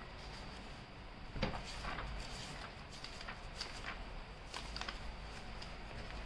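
Paper pages of a thick printed data book being leafed through and handled: a run of short, dry rustles and flicks.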